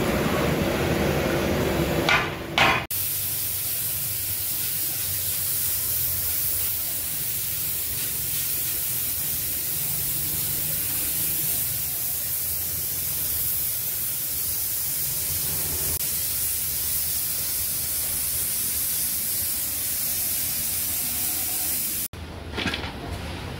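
A steady, mostly high-pitched hiss that starts suddenly about three seconds in and stops suddenly near the end, with a low hum beneath it.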